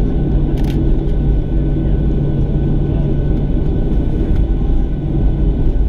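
Steady low rumble of the engines and airframe heard inside the cabin of a Boeing 737-600 with CFM56-7B engines, rolling on the ground after landing. A low hum within it stops about halfway through, and there is a light click just under a second in.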